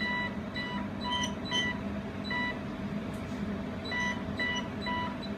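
Touchscreen control panel of a jewelry laser welding machine beeping with each button press as the spot-size (facula) setting is stepped up and down: about eight short, high beeps at uneven intervals, with a pause near the middle. A steady low hum runs underneath.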